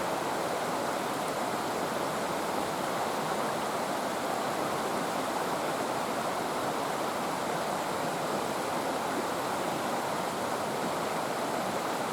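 River water rushing steadily over rocks, running high with flood water.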